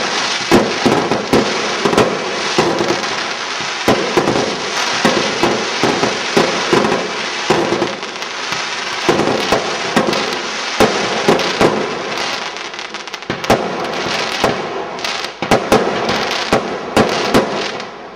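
Fireworks salute: rapid, irregular bangs of bursting aerial shells over a steady dense crackle.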